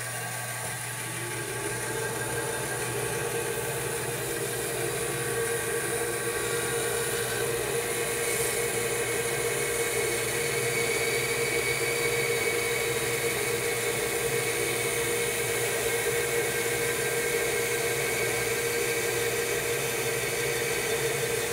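Rikon bandsaw running, its quarter-inch, six-tooth blade cutting through a thick block of air-dried walnut. The motor hum and blade whir are steady and build slightly over the first couple of seconds.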